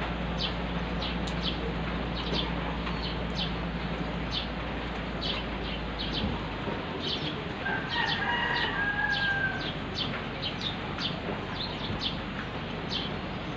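Steady rain falling, with a rooster crowing once about eight seconds in.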